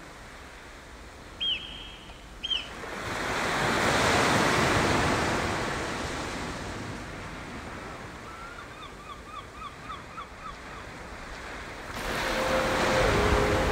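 Sea waves washing on a beach, swelling about three seconds in and easing off. A bird calls twice early on, and later gives a quick run of repeated piping notes. Held music notes begin near the end.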